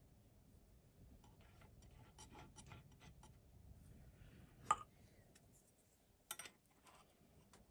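Faint clicks and light metallic clinks of a clamp and tools being handled on a milling machine table, with one sharper click about halfway through and a short clatter a little over six seconds in.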